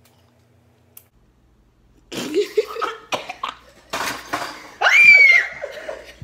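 A woman gagging, coughing and retching, starting about two seconds in, after eating the vomit-flavoured BeanBoozled jelly bean; the loudest heave, a long strained cry, comes near the end. Another person laughs alongside.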